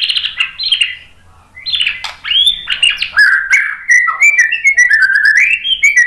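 White-rumped shama (murai batu) singing: a burst of rich, varied phrases, a short pause about a second in, then a fast run of whistled notes, many slurring downward.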